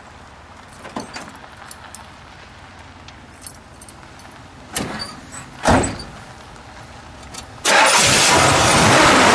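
1972 Buick GS's 455 cubic-inch V8 started up: after a few faint clicks and two short knocks, the engine catches abruptly near the end and runs loud and steady.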